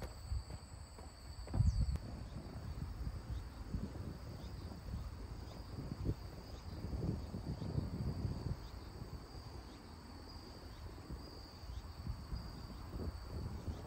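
Insects trilling steadily at a high pitch, a continuous buzz that swells slightly now and then, over irregular low rumbling and soft thumps, the loudest thump about a second and a half in.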